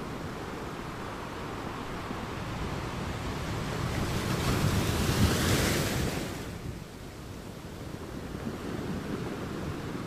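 Ocean waves washing ashore: a wave builds and breaks about halfway through, its hiss rising to the loudest point, then falls away to the steady wash of surf.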